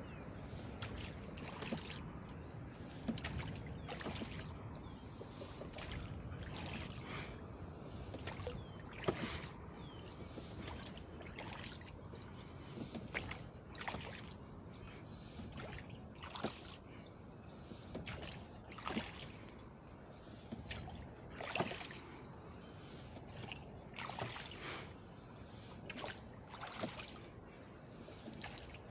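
Rowing a flat-bottomed wooden rowboat: sharp knocks and splashes of the oars in their oarlocks and in the water come in clusters about every two and a half seconds, one per stroke, over a steady wash of water.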